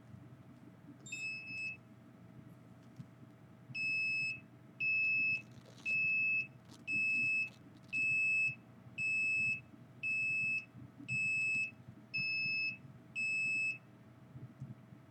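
Electronic alarm beeping with a single high-pitched tone: one beep about a second in, then ten evenly spaced beeps, about one a second, each lasting around half a second, over a faint steady hum.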